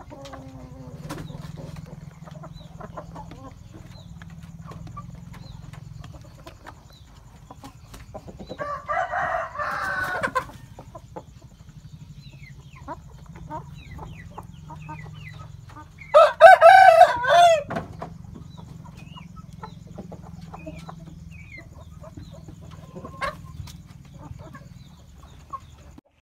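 Bangkok game roosters crowing twice, about eight and sixteen seconds in, each crow lasting about two seconds, with faint clucks in between over a steady low hum.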